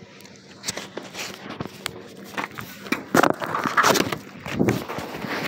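Handling noise from a phone being moved: cloth rubbing and scuffing over the microphone, with scattered clicks and knocks, loudest from about three seconds in.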